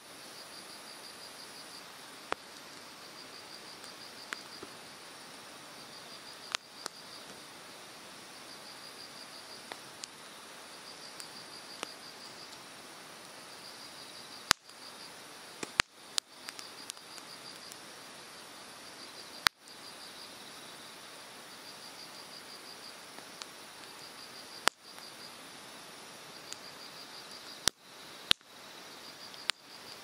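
Hardwood campfire crackling, with scattered sharp pops, the loudest several in the second half. Under it runs the steady rush of a mountain stream, and an insect chirps in short pulsed trills every second or two.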